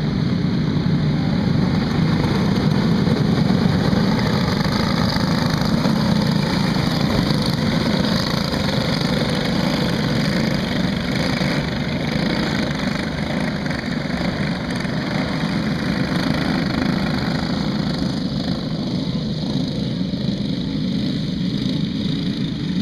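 A pack of racing go-karts running at speed, their small engines droning together steadily, a little louder early on and easing somewhat later as the pack moves around the track.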